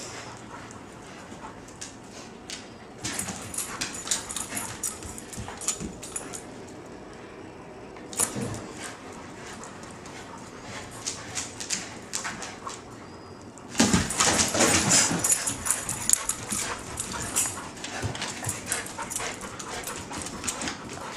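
Dogs (a rottweiler, a rottweiler mix and a schnauzer mix) playing rough together: scuffling with many short clicks and knocks and dog vocal sounds. It gets much louder and busier about two thirds of the way in.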